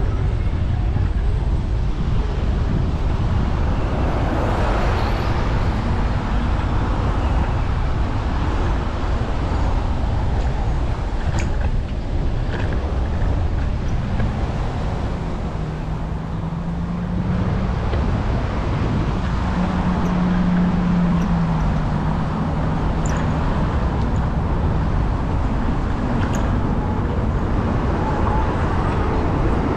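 Wind rumbling on the microphone of a camera carried on a moving electric scooter, mixed with street traffic. A low steady hum holds for several seconds in the middle.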